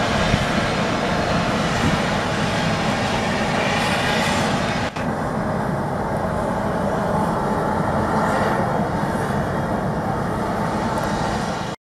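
Loud, steady rumble of a train or other rail equipment moving close by. The higher hiss drops away about five seconds in.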